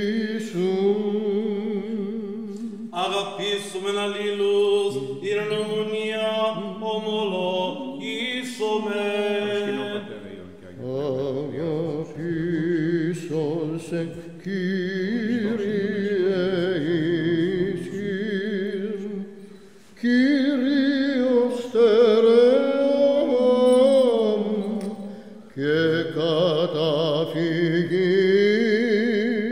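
Byzantine chant of the Greek Orthodox liturgy: a chanter sings slow, ornamented melodic phrases over a steady held drone note (the ison), pausing briefly between phrases.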